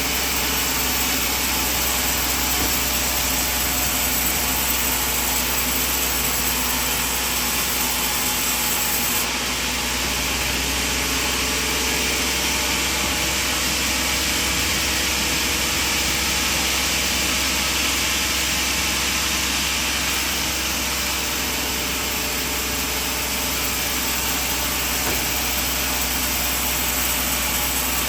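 Sawmill machine running steadily, a loud continuous mechanical drone with a slight change in its higher tone about nine seconds in.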